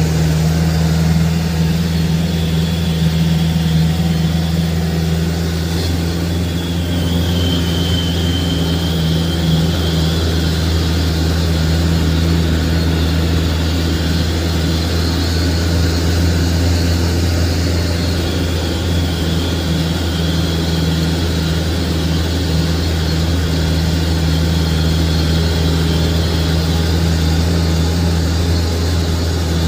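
Truck engine running steadily with a low drone while the truck drives along, heard from inside the cab.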